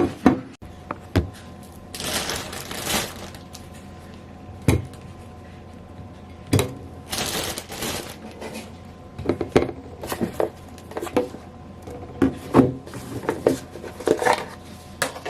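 Household handling noises: scattered small clicks, knocks and clinks of objects being picked up and set down, with two longer rustling or hissing stretches, over a faint steady hum.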